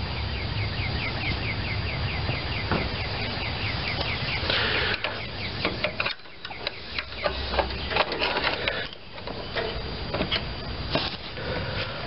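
For the first few seconds, a steady low rumble with a fast series of short high chirps, about four a second. Then pliers and a screwdriver click and scrape against a push-on one-way retaining washer on a wheel axle as it is pried at.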